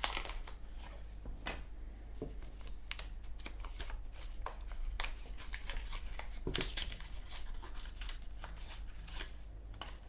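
Packaging of a replacement Zippo wick being opened by hand: irregular rustling, crinkling and small clicks.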